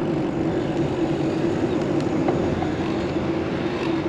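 Riding noise from a bicycle on the road: wind and road rumble with a steady hum.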